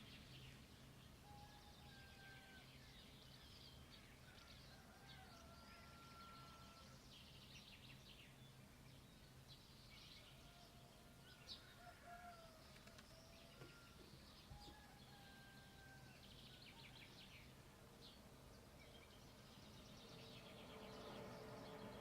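Faint dawn birdsong: many small birds chirping, with a few clear, held whistled notes, over a steady low hum.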